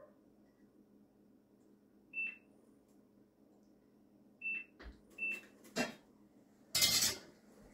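ProDim ProLiner digital templater giving three short high beeps, the first about two seconds in and the other two close together a couple of seconds later, as points are recorded with its stylus. A few light clicks, and a brief louder noise near the end.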